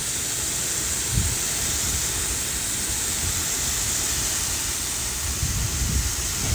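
Orbit Voyager II gear-driven rotor sprinkler running, its water jet giving a continuous steady hiss of spray, with low gusty rumbles on the microphone near the end.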